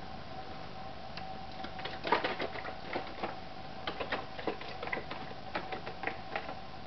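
Irregular light clicks and ticks, several a second, starting about two seconds in and fading out near the end, over a faint steady hum.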